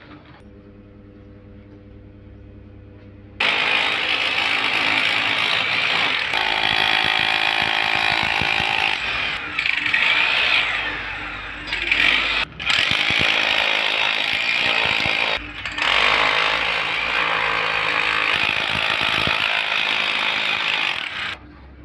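Jackhammer running in long loud runs, chipping away built-up material to clear a concrete batching plant's loading area. It starts about three seconds in, after a low steady hum, and breaks off briefly twice.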